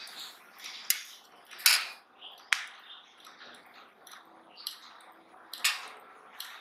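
A thin metal hard-drive top cover being handled and set down on a wooden tabletop: a handful of sharp clicks and clacks, the loudest near two seconds in.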